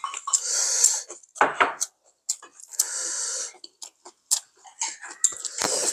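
Eating at a laden table: chopsticks clicking against dishes a few times, and crunchy chewing of fresh lettuce wraps.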